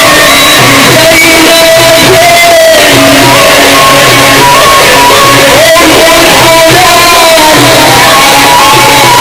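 Loud, amplified male munshid singing Sufi religious chant (inshad). He holds long, ornamented, wavering notes over instrumental backing.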